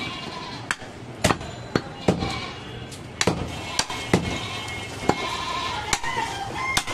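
Butcher's large chopping knife striking goat meat on a wooden log chopping block: a series of sharp, irregular chops, about two a second.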